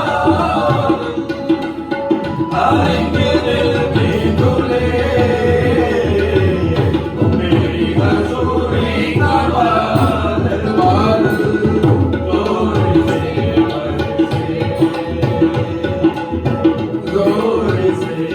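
Worship-song music played by a band, with a busy hand-drum beat and a melodic line over it, with no lyrics sung.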